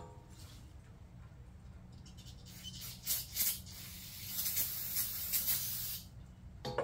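Aerosol can of carburetor cleaner spraying onto a removed cylinder head: two short hisses about three seconds in, then a longer pulsing spray of nearly two seconds. A metal clunk at the start and another near the end as the head is handled.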